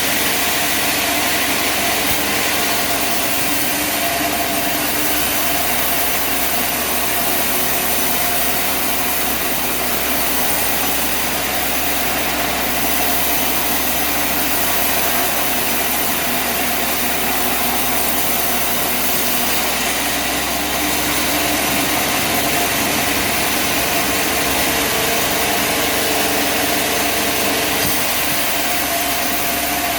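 An engine running steadily at an even pace, with constant machinery noise and no starts, stops or impacts.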